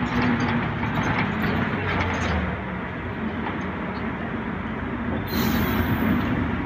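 Mercedes-Benz O405 city bus under way, heard inside the passenger cabin: the engine and drivetrain run steadily under road rumble. About five seconds in, a short burst of hiss rises over it.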